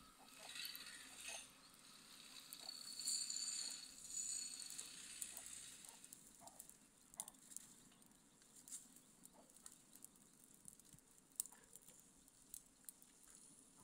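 Small wood fire crackling under soapstone pots of water: scattered faint pops and ticks, with a high hiss during the first six seconds.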